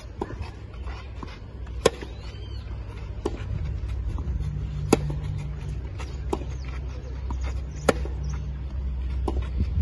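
Tennis ball hit back and forth in a baseline rally: three loud racket strokes about three seconds apart, with fainter hits from the far end of the court between them. A steady low rumble lies underneath.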